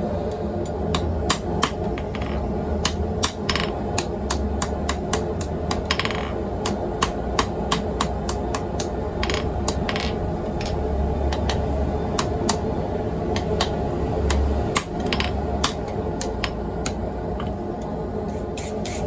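Hammer blows on hot steel tong jaws set in a mini swage, a series of sharp, ringing strikes at an uneven pace over a steady low hum.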